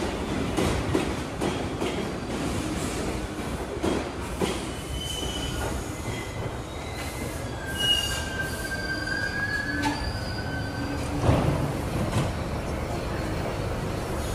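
New York City subway train of R62/R62A cars moving through the station, its wheels clattering over the rail joints and then squealing in several high tones. A loud knock comes about eleven seconds in.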